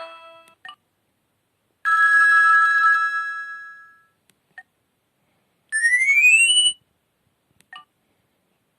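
Alcatel OT-282 mobile phone playing short built-in alert tones through its small speaker. First comes a single bell-like chime that rings out and fades over about two seconds, then a quick rising sweep of notes lasting about a second. Faint clicks fall between them, and the end of a previous melody dies away at the very start.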